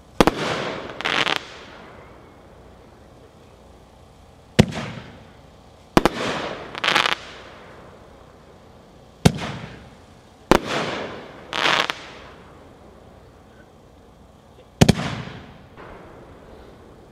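Phantom Badassical Blast consumer aerial fireworks firing shot after shot, about every five seconds. Each shot lifts with a sharp thump, bursts overhead about a second and a half later with a fading boom, then gives a second, crackling report about a second after that.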